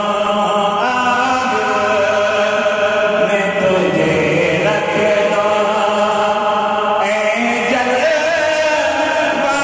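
A man singing a naat, an Islamic devotional song in praise of the Prophet, close into a handheld microphone, holding long, wavering notes that slide from one pitch to the next.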